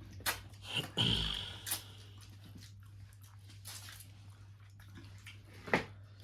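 Scattered clinks and knocks of utensils and dishes, with a short high squeak about a second in and a sharper clink near the end.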